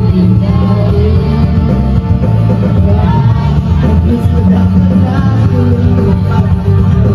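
Karaoke duet: a man and a woman singing through handheld microphones over a loud backing track with a heavy bass line.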